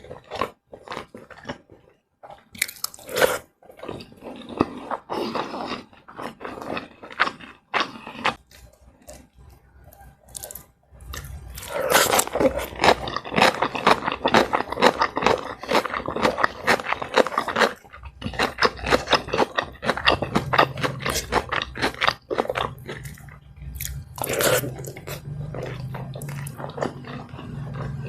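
Close-miked eating sounds: biting and chewing a meal of fried rice, flour-battered fried liver and coleslaw, getting denser and louder about eleven seconds in. A low steady hum runs under the last third.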